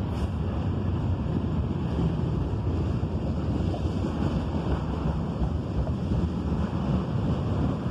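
Freight train's cars rolling past below, a steady low rumble mixed with wind noise on the microphone.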